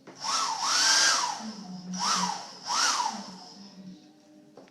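Handheld blow dryer switched on and off in four short bursts: each time there is a rush of air and a motor whine that rises as it spins up and falls away as it spins down.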